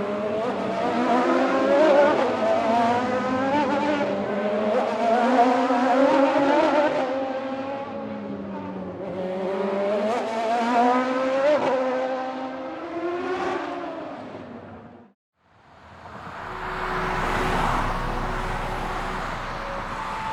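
Car engines revving with wavering, overlapping pitches for about fifteen seconds, then cutting off suddenly. A rushing noise follows, swelling and fading as a car passes.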